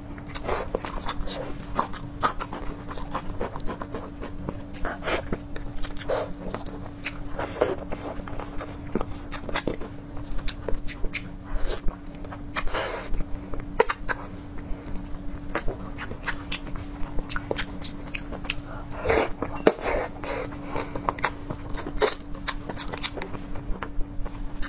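Close-miked eating of braised pig tails: irregular wet chewing, sucking and lip-smacking clicks. A steady low hum runs behind it and stops a few seconds before the end.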